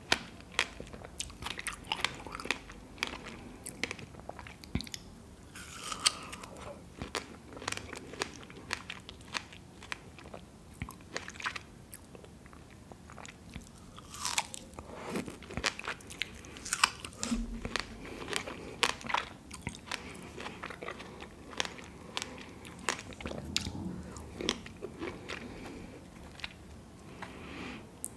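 Close-miked eating of fresh strawberries: bites into the juicy fruit and wet chewing, with many small irregular mouth clicks and smacks.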